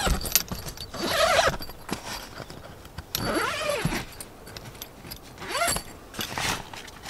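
Three bursts of rustling with light metallic clicks and clatter from movement in and around a roof tent.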